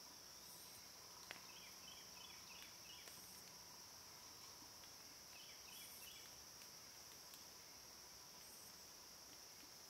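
Faint, steady high-pitched drone of an insect chorus in summer woods, with short chirps in little runs and a single faint click about a second in.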